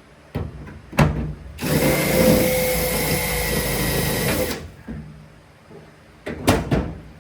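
Hand-held power drill running for about three seconds, boring a hole through the truck's sheet-steel firewall, with a few sharp knocks before and after.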